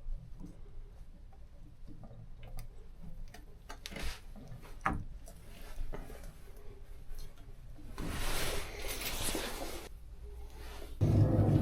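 Scattered clicks and knocks of tools and parts being handled, a hiss lasting about two seconds, then a louder low steady hum that starts near the end.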